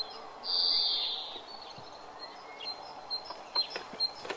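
Woodland ambience: a bird repeating short, high chirps, with a brief high insect-like buzz about half a second in and a few faint taps near the end.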